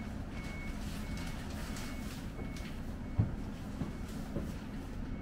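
Vehicle reversing alarm, a single high tone beeping about one and a half times a second over a low engine rumble, fading out about three seconds in. A few footsteps on the wooden floor follow.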